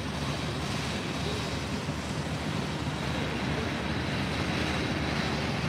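Steady outdoor airfield ambience: a low, even rumble with a hiss over it and no distinct events.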